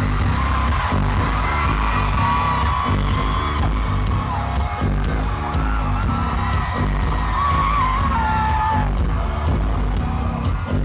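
Live rock band playing loud, with distorted guitars, bass and drums and a wavering melody line on top.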